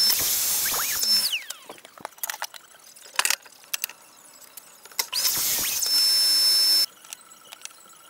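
Mitre saw, twice: the motor spins up to a high steady whine and the blade cuts through a wooden board. The first time the blade winds down with a falling whine. The second time the sound stops abruptly. A few light clicks come in the pause between the two cuts.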